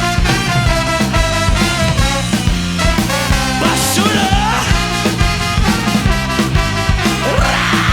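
Ska band playing live: sustained horn lines from alto sax, trumpet and trombone over electric bass and a steady drum beat.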